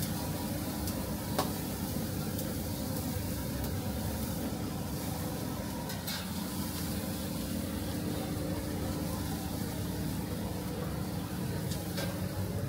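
Chicken sizzling on a charcoal grill: a steady hiss over a low hum, with a few light clicks.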